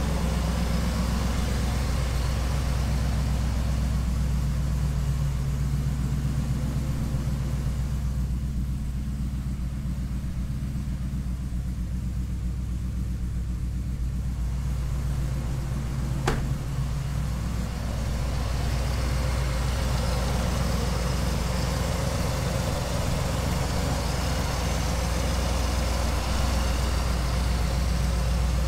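Supercharged 5.4-litre V8 of a Ford SVT Lightning pickup, built with a big cam, long-tube headers and a 3-inch exhaust, idling steadily. It is super loud and throaty, and the owner says it is running well on its new tune with no vacuum leaks. One sharp click about sixteen seconds in.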